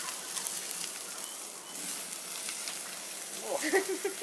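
Steaks sizzling on the grate over flaming charcoal in a kamado grill, with scattered crackles and pops as basting butter drips onto the coals.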